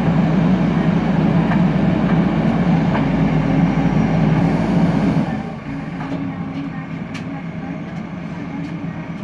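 JCB 3DX backhoe loader's diesel engine running hard under load, then dropping to a lower, quieter running about five seconds in as the load or throttle eases.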